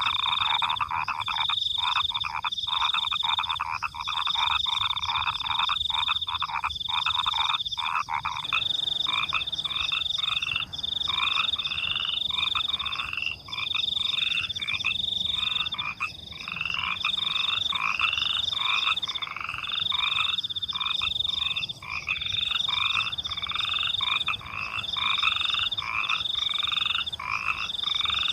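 A night chorus of frogs croaking with crickets chirping, dense and continuous. A high, even chirp repeats about once a second. One loud, fast-pulsing lower call drops out about eight seconds in while the rest of the chorus goes on.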